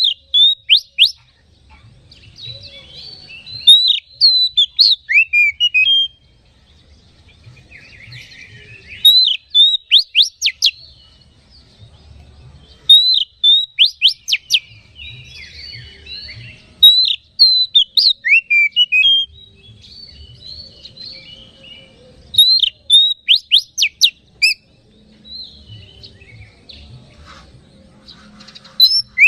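Male Oriental magpie-robin singing: loud bursts of quick, sharp whistled notes every few seconds, with quieter scratchy twittering in between. It is the vigorous, worked-up song that keepers play as a lure to rouse other magpie-robins.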